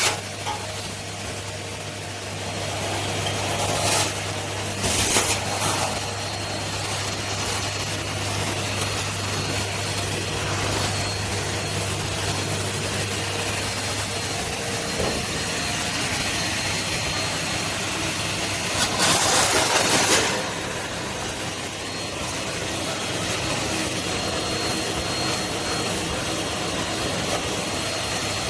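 Henry canister vacuum cleaner running steadily, with short louder rushes of hiss about four and five seconds in and again for about a second around two-thirds of the way through.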